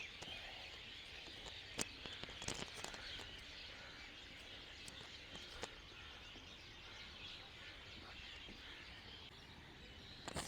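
Faint outdoor ambience of many small birds chirping together, with a few short clicks.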